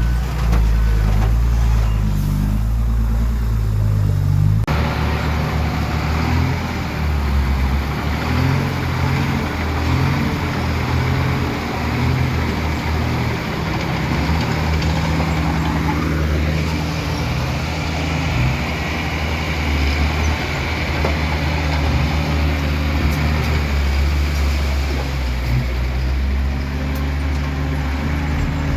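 Heavy diesel earthmoving machine engine running steadily under load. About five seconds in the sound shifts abruptly and a rougher, clattering noise rides over the engine.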